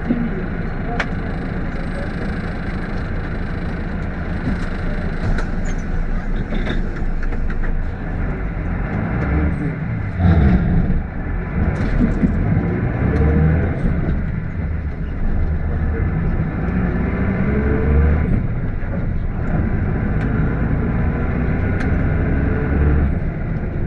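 Route minibus driving, its engine rising in pitch several times as it speeds up, with a faint steady high whistle over the engine that the uploader puts down to the brake pads.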